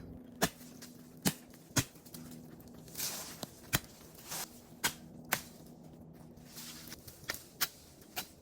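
Wood being cut for a makeshift spear: a series of about eight sharp, irregular knocks and cracks, with a couple of brief rustles between them.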